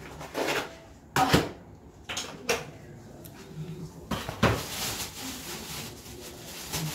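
Plastic bottle and plastic bag being handled: rustling with a few sharp knocks and clatters, the loudest about a second in and again about four and a half seconds in.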